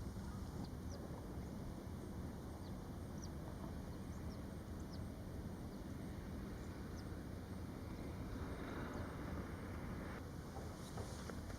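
Faint, short, high bird chirps, about ten of them spread over several seconds, over a steady low rumble.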